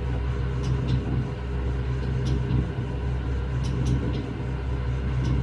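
Electric mixers running in the background, churning a batch of bath bomb mixture: a steady low motor hum with a constant whine above it. A few faint light clicks sound over the hum.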